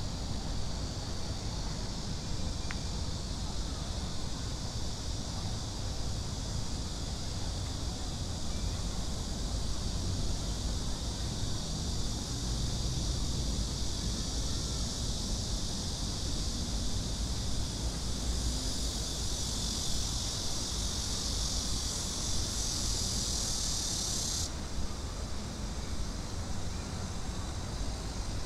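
Cicadas buzzing in a steady high chorus, growing louder for several seconds and then cutting off suddenly about three-quarters of the way through, over a low, steady rumble of city traffic.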